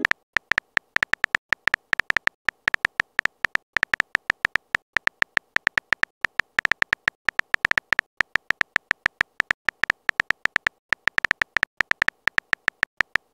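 Simulated phone-keyboard typing sound effect: a quick, uneven run of short key clicks, about five a second with a few brief pauses, as a text message is typed out letter by letter.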